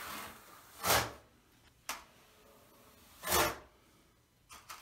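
Notched trowel scraping thinset mortar onto the back wall of a Kerdi shower niche: two scraping strokes, one about a second in and one at about three and a half seconds, with a short sharp scrape just before two seconds.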